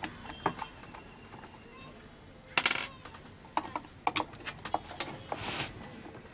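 Screws being taken out of the back panel of a multimedia bass speaker cabinet: scattered light metallic clicks and clinks of screwdriver and screws, with a louder clatter about two and a half seconds in.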